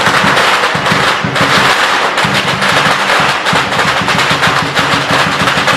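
A string of firecrackers going off in a rapid, continuous crackle of loud pops, with percussion beating underneath.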